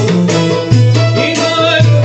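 Malouf ensemble playing: oud and upright-held violin carry the melody over low drum beats that land about once a second.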